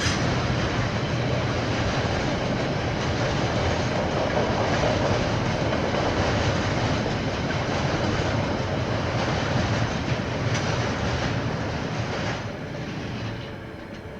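KiwiRail train rolling past, a dense rumble and rattle of wheels on rail with a sharp click or two. It drops away about twelve seconds in and is fading near the end.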